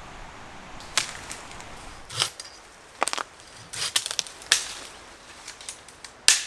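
A series of sharp cracks and knocks at irregular intervals, some in quick clusters, the loudest near the end.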